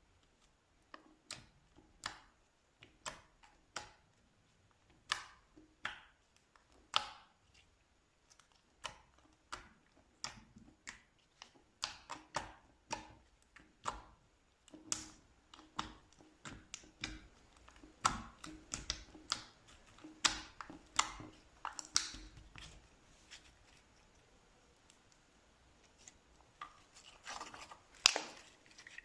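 Slime being pressed and squeezed by hand, giving irregular sharp clicks and pops, about one or two a second and more crowded in the middle. A louder cluster of pops comes near the end.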